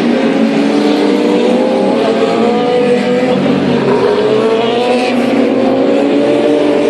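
1000cc inline-four superbike engine at high revs under racing load; its pitch slowly sags and climbs again as the rider rolls off and back onto the throttle.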